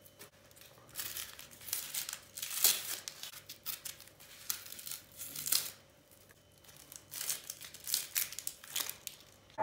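Dry, papery onion skin being peeled off an onion with a paring knife: irregular crinkling and tearing rustles, with a short quiet pause a little past the middle.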